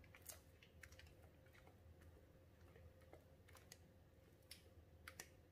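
Near silence: a faint steady hum with scattered soft clicks and taps from a silicone spatula scraping thick cake batter out of a glass bowl into a baking pan.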